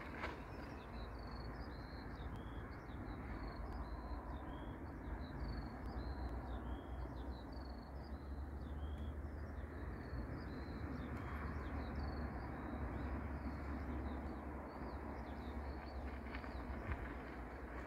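Small birds chirping continuously in quick, short notes over a steady low rumble.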